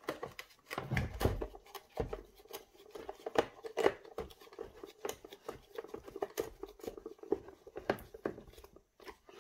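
Screws being driven by hand into the plastic housing of an electric chainsaw: a run of irregular small clicks and scraping.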